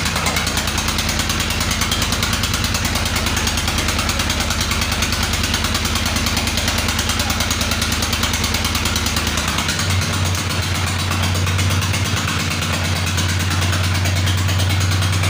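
Single-cylinder Petter diesel engine running steadily under load, driving a dynamo, with a fast even beat. About ten seconds in, the low hum changes character while the overall loudness stays the same.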